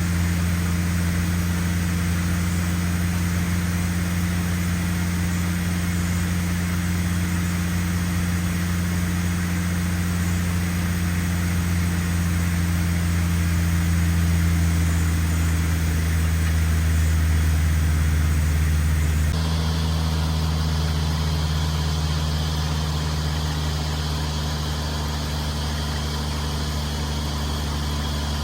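Engine of a water-well drilling rig running steadily at constant speed with a deep hum. Its tone changes abruptly about two-thirds of the way through, then runs on steadily.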